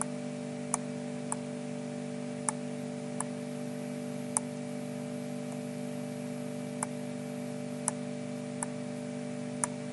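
Computer mouse clicking, about nine separate clicks at uneven intervals, over a steady low electrical hum.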